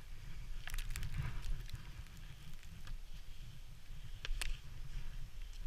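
Wind rumbling on the microphone, with a few sharp clicks and scrapes from ski boots and rappel gear against snow and rock during an abseil.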